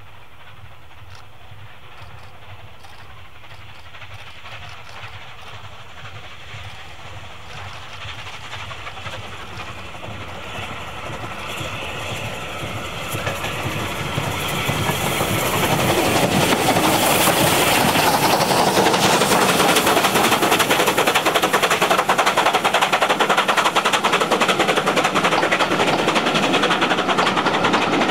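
Unrebuilt Bulleid Pacific steam locomotive approaching under steam, its sound growing steadily louder and at its loudest as it passes about sixteen seconds in. After that, the carriages of its train roll by with a continuous clatter of wheels on the rails.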